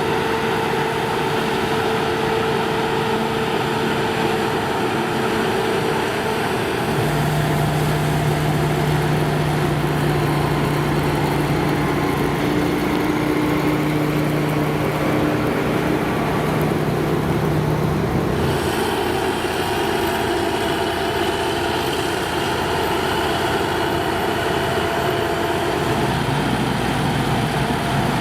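Diesel engines of Claas Lexion combine harvesters running steadily under load while harvesting. The engine note shifts about a quarter of the way in and again a little past halfway.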